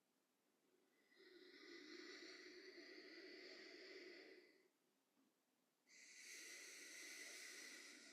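A person breathing deeply and audibly: two long, faint, slow breaths of about three seconds each, clearing breaths taken during a guided meditation.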